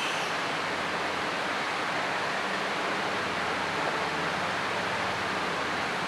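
Steady, even hiss of background noise at a constant level, with no speech or music.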